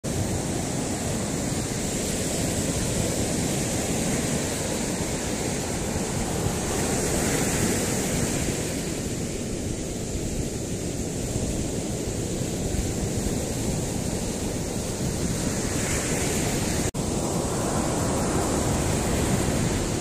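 Ocean surf breaking and washing up a sandy beach, a steady rushing noise, with wind buffeting the microphone. The sound cuts out for a split second about three-quarters of the way through.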